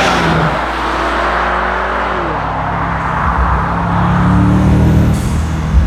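BMW M5's 4.4-litre twin-turbo V8 pulling under load on the move, over a steady rushing noise; the engine note drops about two seconds in and climbs again in the second half.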